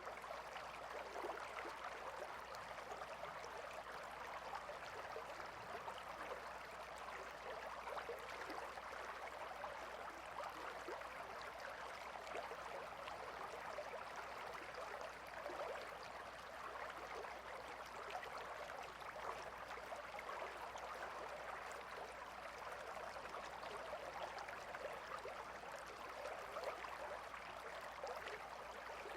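Gentle river flowing: a steady, even rush of water.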